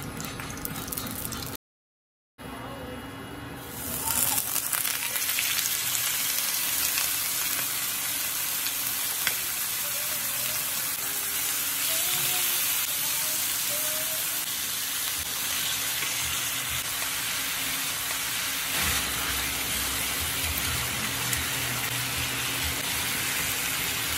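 Marinated chicken pieces sizzling steadily on a hot oiled grilling pan. The sizzle starts about four seconds in, after a brief silent gap.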